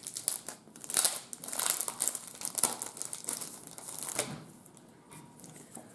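Plastic wrapping on a comic book crinkling and rustling in irregular bursts as it is opened and handled, dropping to faint rustles in the last second and a half.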